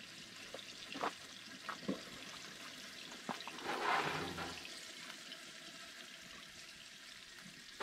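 Food sizzling in a frying pan at a camp stove, a steady faint hiss with a few sharp pops and a brief louder rush about four seconds in.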